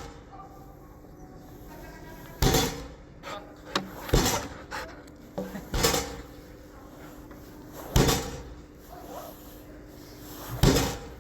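Dog agility seesaw board banging down onto its base again and again: five loud bangs about two seconds apart, with a few smaller knocks in between.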